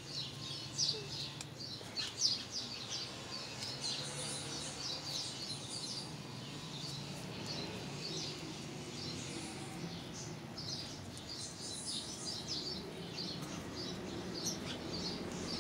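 Small birds chirping in the background, many short high chirps in quick succession, over a faint low hum. A few light knocks in the first couple of seconds come from hands handling the electrical tape and the pump's power cable.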